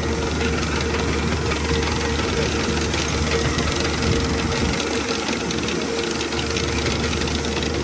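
Farm tractor engine running steadily at a constant speed while it pulls an onion-lifting bar through the soil, with a steady low hum and a steady tone above it.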